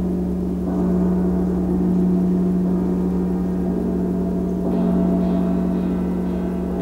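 Percussion ensemble in a slow, sustained passage dominated by a large gong ringing with a strong steady low tone and a shimmer of higher tones. The sound swells again about a second in and near five seconds in.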